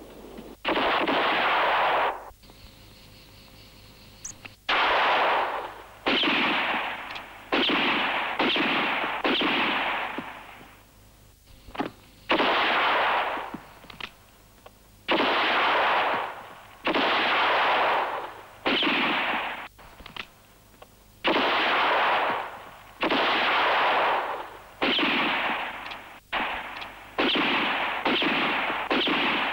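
A string of about twenty gunshots, irregularly spaced and often a second or less apart, each a sudden crack with a long fading echo.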